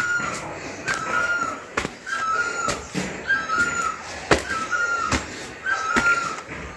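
Footsteps climbing stone stairs, landing about every half second to second. Over them a short hooked high note repeats very regularly, about once every 1.2 seconds.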